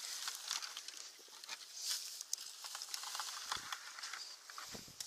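Rustling and scraping of a rope being hauled in and gathered by hand through grass, with many small crackles, and two brief dull thumps about three and a half and five seconds in.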